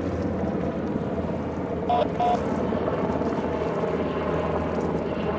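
Twin-turbine Sikorsky H-60-series helicopter flying past, its rotor and engines making a steady low drone. About two seconds in, two short electronic beeps sound.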